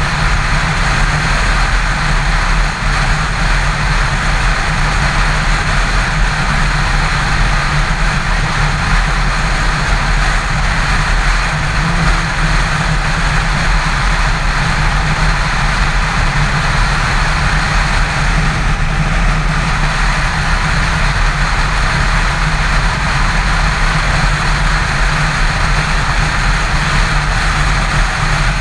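Yamaha FZ6 motorcycle cruising at steady highway speed: a constant rush of wind and road noise over the even, low drone of its inline-four engine.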